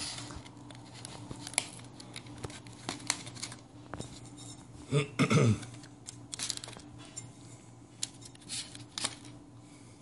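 Light clicks, scrapes and rustles of utensils and shredded chicken being put into a crunchy taco shell.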